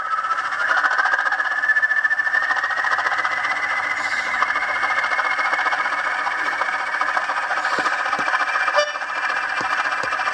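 Diesel engine sound from a Bachmann Class 20 model locomotive's sound decoder, played through a fitted twin speaker. A whistle rises in pitch over the first few seconds and then holds steady over the engine's running note, with a few faint clicks later on.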